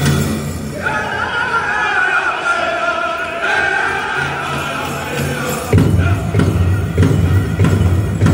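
Powwow drum group singing a chicken dance song: high, wavering voices, with the big drum dropping away for several seconds and then coming back in with loud, steady beats about three a second.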